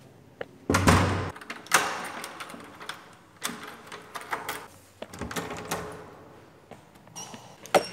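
A door thudding shut about a second in, followed by a second knock and then clicks and rattles of the metal lever handle and lock being worked.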